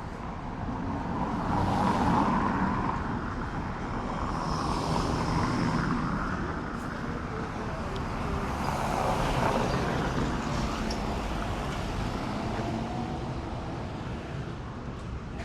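Downtown street traffic: cars and other vehicles passing one after another, swelling louder about two, six and nine seconds in.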